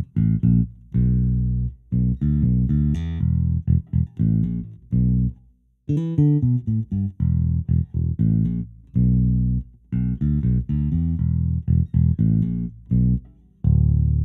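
Sampled Fender Precision Bass virtual instrument (Ample Sound P-Bass) playing a solo bass line of plucked notes, with a short pause about five and a half seconds in. Its tone is EQ-matched with FabFilter Pro-Q 2 to imitate a Jazz Bass.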